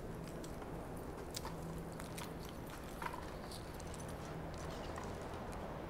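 Light footsteps on a concrete walkway, a scatter of short, irregular clicks over a steady low hum.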